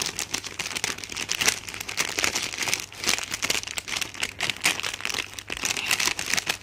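Paper bag crinkling and rustling in dense, irregular crackles as fingers peel back its sealing sticker and work open the folded top.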